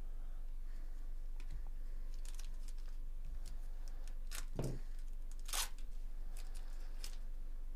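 Plastic wrapper of a Bowman Chrome baseball card pack being torn open and crinkled by gloved hands: a few short tearing rustles, the loudest about four and a half and five and a half seconds in.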